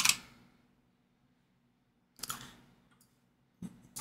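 Mostly near silence, broken by one short sharp click about two seconds in and a couple of fainter ticks near the end.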